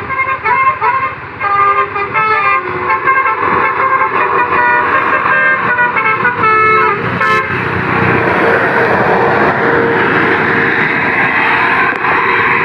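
Indonesian bus's basuri telolet horn playing a tune of quick stepped notes. After a sharp click about seven seconds in, a loud steady rushing noise takes over.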